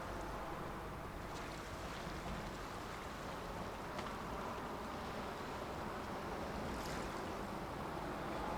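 Steady wash of sea water and wind along the strait's shore, an even noise with a few faint clicks.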